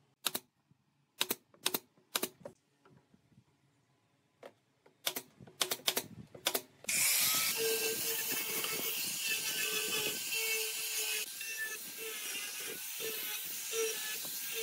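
A series of sharp clicks and knocks, some in quick clusters. About seven seconds in an angle grinder fitted with a sanding disc starts up suddenly and runs steadily, sanding the wooden chair.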